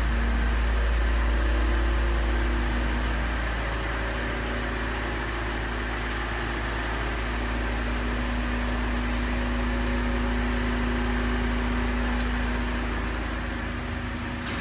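Mini Cooper S's turbocharged 1.6-litre four-cylinder engine idling, a steady low hum with no change in speed.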